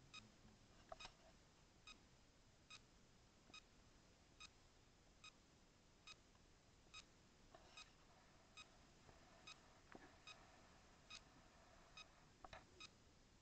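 Faint short beeps repeating evenly, a little faster than once a second, over near silence.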